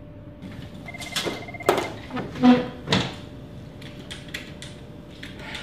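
Several knocks and clunks of objects being handled and set down, like a case or drawer at a desk, with a brief high beep about a second in.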